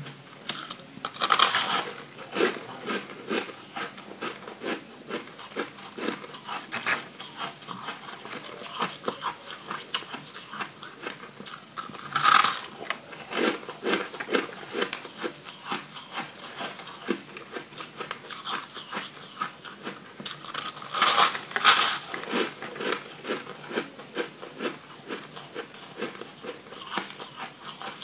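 Crunching and chewing of crumbly yellow coloured ice, with many small crackles throughout. There is a loud bite about a second in, another near the middle, and two more about three-quarters of the way through.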